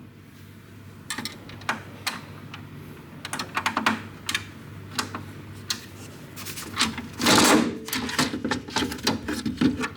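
Irregular light clicking and rattling of small hard parts being handled, with a louder clatter about seven seconds in.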